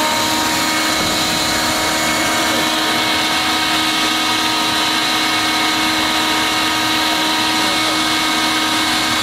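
Electric air blower running steadily at a constant high whine, inflating a clear plastic water walking ball.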